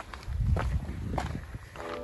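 Footsteps of a hiker walking on a rocky trail, a few sharp steps over a low rumble. Piano music comes in near the end.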